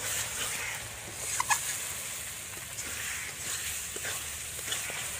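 Metal spatula stirring and scraping thick masala paste that is frying in a steel kadai, with a faint steady sizzle and a few light scrapes. A short animal call about one and a half seconds in.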